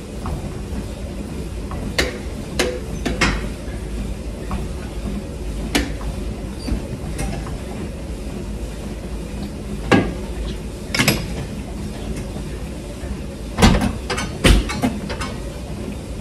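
Steady low gym hum with scattered sharp clicks and knocks, the loudest knocks coming near the end, from a hip adductor machine being handled and set up.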